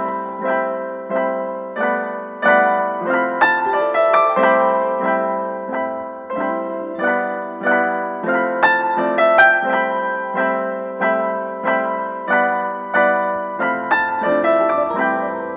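Background instrumental music: a steady run of struck notes and chords, about two a second, each fading away.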